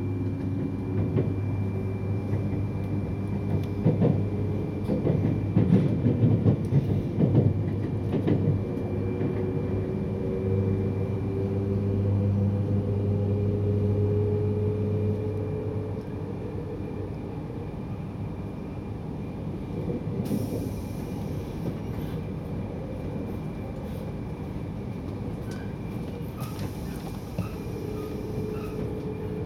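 Cabin noise of a 200 series Shinkansen train accelerating away from a station: a steady running hum with a tone that rises slowly in pitch, and a cluster of wheel knocks a few seconds in. The hum drops quieter about halfway through.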